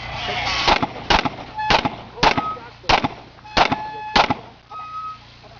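STI pistol in .40 calibre firing a string of single shots, about seven, irregularly spaced roughly half a second apart.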